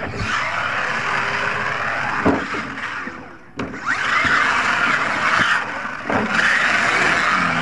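RC monster truck motor and drivetrain whining through three long bursts of throttle, with tyres churning dirt. A sharp knock of the truck hitting the ground comes a little over three and a half seconds in, between the first two bursts.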